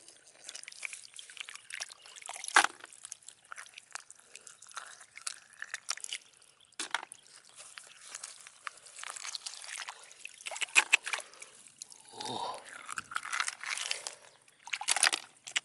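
Wet crunching, dripping and sloshing of snails being gathered by hand from water and mud, with many sharp clicks and crackles.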